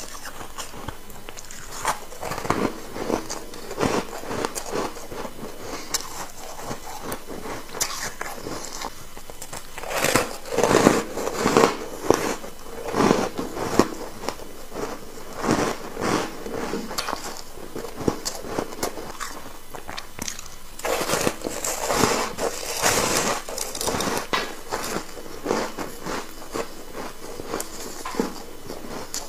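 Layered ice bar being bitten and chewed, a long run of crisp crunches from a close microphone, loudest in two spells about ten and twenty-one seconds in.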